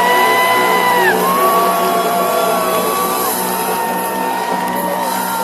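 Music with several long held high notes that bend up and then fall away, overlapping one another over a steady low pulse.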